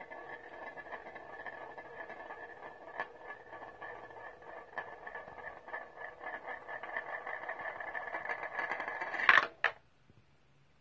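Hanayama Thrill Bomb toy running: a steady whir under rapid rattling of small balls in its plastic funnel, growing louder toward a loud clatter about nine seconds in, then stopping suddenly.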